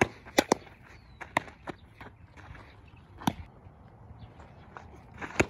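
A series of sharp, irregular knocks and scuffs from softball practice on a dirt infield: a player's feet on the dirt and a ball smacking into a leather glove, the loudest about half a second in and again near the end.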